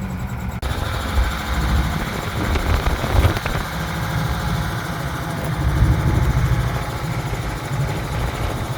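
Car engine running at low revs while the car creeps forward slowly.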